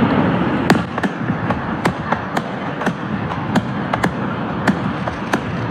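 Fireworks display: aerial shells bursting in a run of sharp bangs, about two a second, over a steady rushing background.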